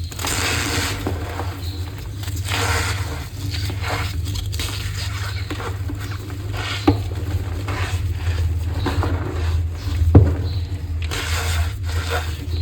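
Blocks of gym chalk being crushed and crumbled, a continuous run of squeaky, crunching scrapes with two sharper snaps about seven and ten seconds in, over a steady low hum.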